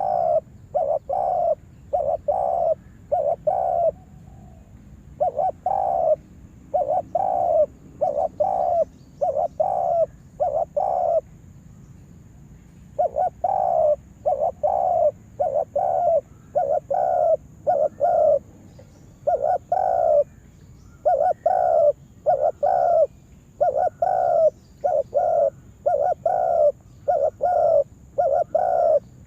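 Spotted dove (tekukur) cooing: a long run of short, evenly spaced coos, about two a second, broken by two brief pauses.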